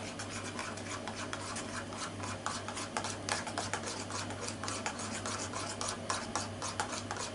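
A metal spoon stirring natto and beaten egg in a small bowl, scraping and clicking against the bowl in a quick, continuous run.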